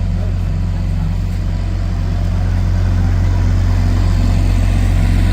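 Steady, loud low-pitched mechanical hum that holds unchanged throughout.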